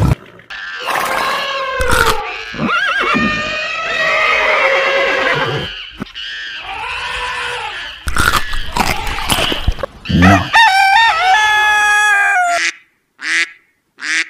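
A run of animal calls, among them a hen clucking and a rooster crowing in the second half, with a few short breaks between the calls.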